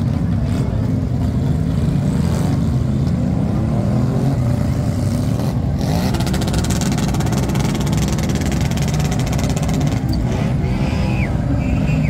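Heavy motorcycle engines, Harley-Davidson V-twins among them, running and revving as the bikes ride slowly past. The sound turns louder and rougher, a rapid-firing rev, from about six seconds in.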